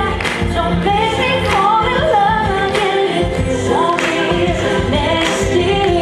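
A woman singing a Christmas pop song over backing music, with choir-like backing voices.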